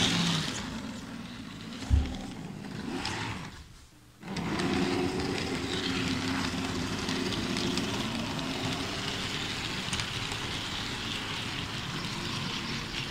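Model diesel locomotive running on its track pulling a train of wagons: a steady motor hum with running noise from the wheels, loud for a model. A single low thump about two seconds in, and the sound dips briefly around four seconds before carrying on steadily.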